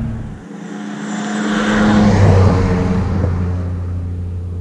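The E30 M3's swapped-in S55 twin-turbo inline-six running, a steady engine note, with a rush of noise that swells to a peak about two seconds in and then fades.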